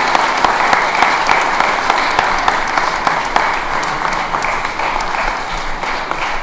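Audience applauding: dense, steady clapping that eases off slightly toward the end.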